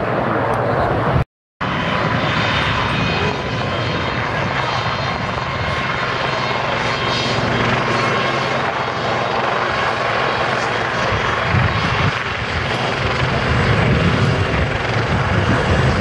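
A pair of helicopters flying a low display pass, their rotors and engines making a steady, loud noise that grows a little louder toward the end. The sound cuts out completely for a split second about a second in.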